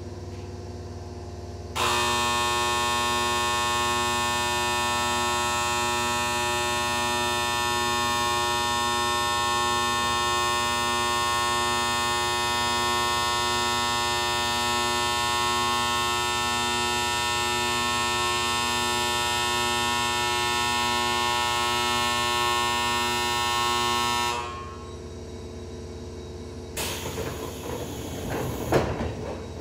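Electric train departure bell ringing steadily for about twenty seconds, starting and stopping abruptly, as a train is about to leave. Near the end come a few knocks as the train's sliding doors start to close.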